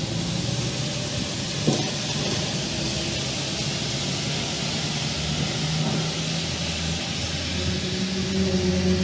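A steady low droning hum of several held tones over a hiss, growing stronger toward the end, with one sharp click about a second and a half in.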